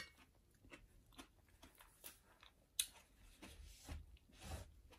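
Faint close-up chewing of a soft mouthful of sausage and mashed potato, with scattered small wet mouth clicks.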